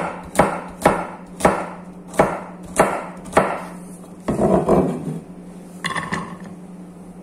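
Chef's knife dicing carrot on a plastic cutting board: about seven sharp chops, roughly one every half second, stopping about three and a half seconds in. Then a brief scraping clatter as the diced carrot is moved off the board into a bowl.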